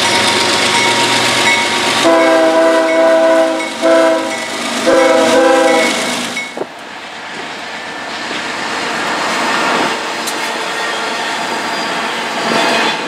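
Union Pacific diesel locomotive's multi-note air horn sounding a long, a short and a long blast over the noise of the approaching train, the close of the standard grade-crossing signal. About six seconds in the horn gives way to a freight train rolling past with steady wheel-on-rail noise and faint clicking.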